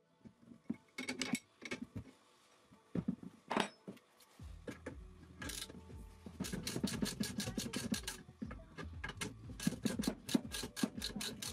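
Hand tools working on a car's shock absorber strut at the bench: scraping and knocking of metal parts at first, then a long run of even, sharp clicks, about four or five a second, over a low steady hum.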